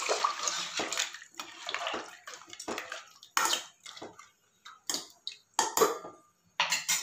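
Steel ladle stirring thin crab soup in a pressure cooker pot: liquid sloshing, with irregular clinks.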